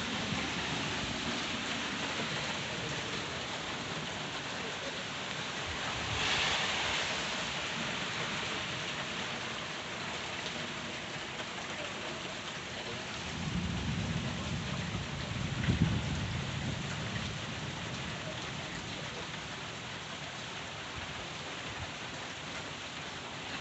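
Steady heavy rain falling straight down, with a low rumble of thunder rolling in a little past the middle.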